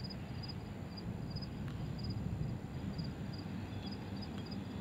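Outdoor ambience: a steady low rumble, with faint high chirps, often paired, repeating a few times a second.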